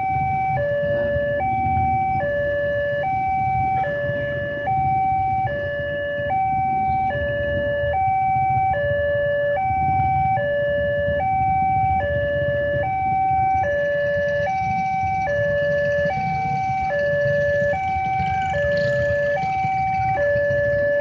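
Railway level-crossing warning alarm sounding from the loudspeaker on the crossing-signal mast: an electronic two-note tone alternating high and low in a steady, unbroken rhythm, the crossing's signal that a train is coming and the barrier is closed. Under it is the low rumble of idling motorcycle and truck engines waiting at the barrier.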